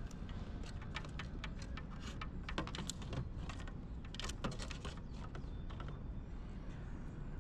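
Irregular light clicks and taps of a bass being handled and laid on a measuring board in a kayak, over a low steady rumble.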